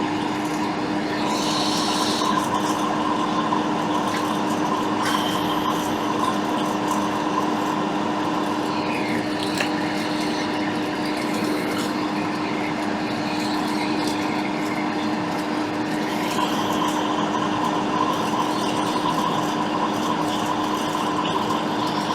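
Steady whirr of a small electric fan or blower on the repair bench, with a constant low hum. It starts abruptly, with a few faint ticks over it.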